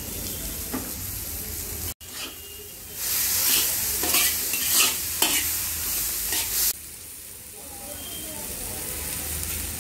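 Vegetables sizzling in a large black wok while a spatula stirs and scrapes against the pan. From about three seconds in there is a louder run of repeated scrapes and knocks over the sizzle. It stops sharply near seven seconds, leaving a steadier, quieter sizzle.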